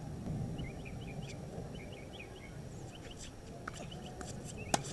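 Outdoor tennis-court ambience: a steady low rumble with small bird chirps in the first half, and a single sharp knock of a tennis ball near the end.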